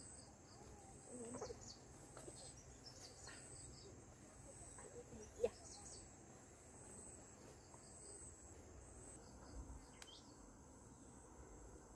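Faint, steady chirring of crickets or other insects in the fields, with a few short bird chirps. Soft cloth-and-strap handling noises, and one sharp click about five seconds in.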